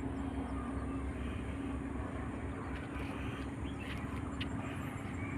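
A steady low hum over even background noise, with a few faint chirps.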